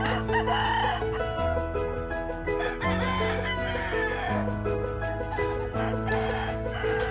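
Gamefowl roosters crowing about three times over added background music of slow, held chords.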